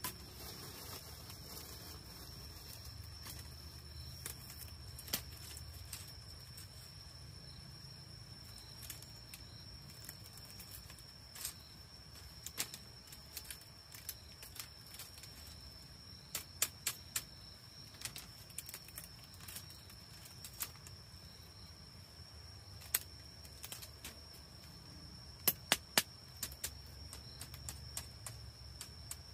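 Scattered sharp clicks and taps, a few in quick clusters of three or four about halfway through and near the end, over a steady high-pitched tone and a low rumble.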